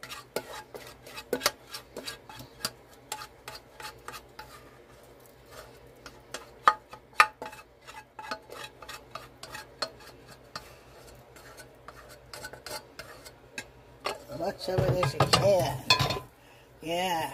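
A plastic spatula scraping and tapping against the rim and inside of a plastic mixing bowl, with irregular clicks and scrapes as the melted chocolate and butter are worked out of the bowl. Near the end comes a louder stretch of rougher sound.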